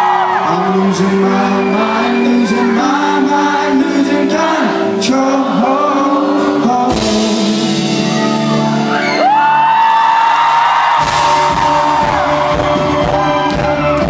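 Indie rock band playing live in a large hall, a male lead singer holding long notes over the band. A heavier beat kicks in about eleven seconds in.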